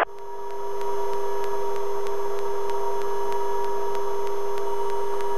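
Helicopter in flight: a steady drone with one clear mid-pitched tone and a few fainter higher tones, fading in over the first second and then holding even.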